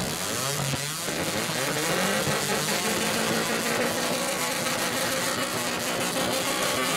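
A car engine running at a steady idle, heard through the noise of a large crowd.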